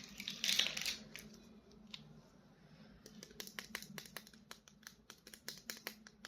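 Toy packaging and plastic figure being handled: a short rustle near the start, then a quick run of light plastic clicks, about three or four a second, over the second half.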